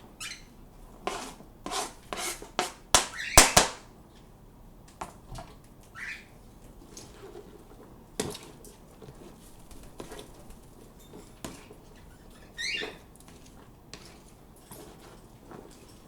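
Small pet birds giving a few short calls amid a run of sharp clicks and knocks, loudest about three seconds in, then scattered lighter clicks.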